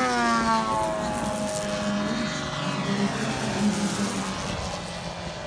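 Radio-controlled model plane's propeller engine flying past at speed, its pitch dropping over the first second as it passes, then holding lower and fading as it draws away.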